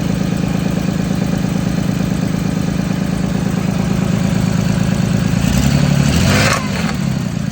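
Toyota 7M-GTE turbocharged inline-six idling steadily. About five and a half seconds in, the engine rises briefly with a hiss that cuts off sharply, then it settles back to idle.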